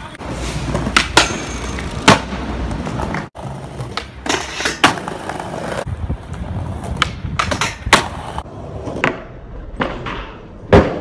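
Skateboard on stone paving: wheels rolling with a steady rumble, broken by sharp pops and clacks as the board strikes the ground. The loudest clack comes near the end, as a jump down a stair set is landed.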